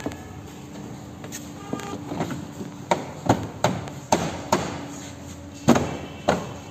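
Plastic door trim panel of a Maruti Ertiga being struck by hand to snap its push-in clips into the door: about ten sharp knocks at an uneven pace, starting about a second and a half in.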